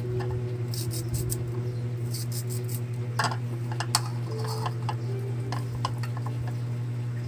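Kitchen knife slicing a peeled green mango over a plastic bowl: scattered light clicks and taps of the blade on the fruit and the bowl. A steady low hum runs underneath.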